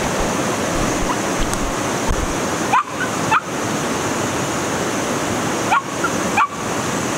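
Steady rush of creek water, with a dog whining in short rising cries, twice about three seconds in and twice again about six seconds in.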